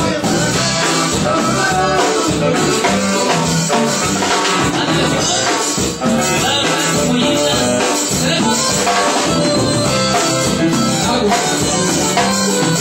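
Live Latin dance band playing loud, with a drum kit and cymbals keeping a steady beat under keyboard.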